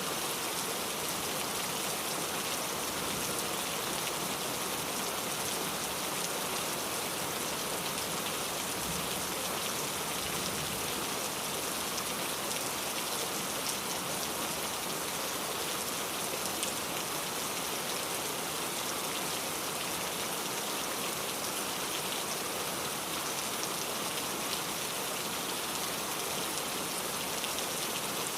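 Steady rain falling on a surface, an even hiss of many fine drops with no let-up.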